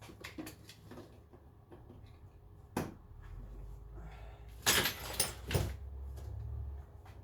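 Clicks and knocks of tools and items being handled and set down in a tool drawer, with one sharp knock and then a louder clattering burst about two-thirds of the way in.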